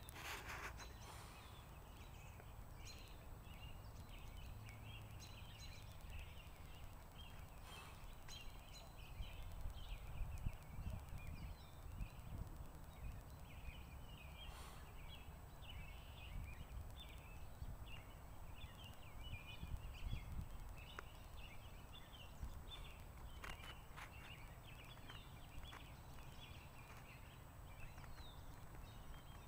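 Faint outdoor ambience: a dense, continuous chorus of short high chirping calls from small animals, over a low rumble on the microphone, with a few soft knocks.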